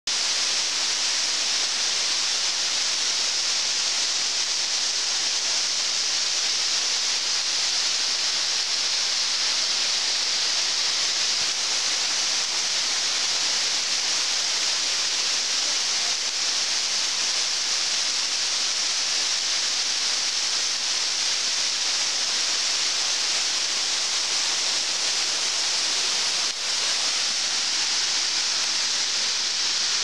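Waterfall pouring down rock faces: a steady, even rush of falling water.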